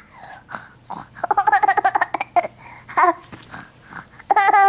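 A baby boy laughing in quick high-pitched bursts and babbling, with a long wavering squeal near the end.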